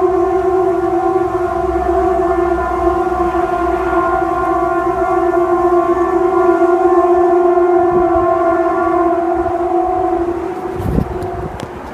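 A loud, steady, siren-like drone held at one pitch with strong overtones for about ten seconds, then fading away near the end, with a brief low thump as it dies out.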